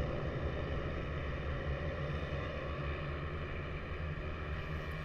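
A pack of 110cc racing minibikes running together at a distance, their engines blending into one steady drone that slowly fades as the field pulls away.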